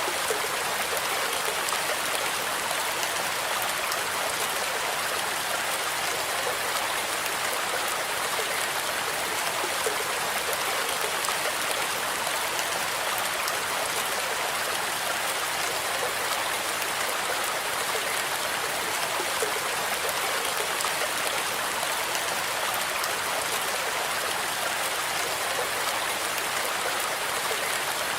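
Steady rain: a dense, even hiss of falling drops, thin on bass, unchanging throughout.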